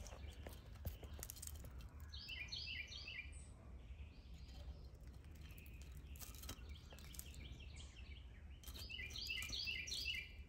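A songbird singing three phrases of rapid repeated chirps: about two seconds in, around six and a half seconds, and again near the end. A faint, steady low rumble runs underneath.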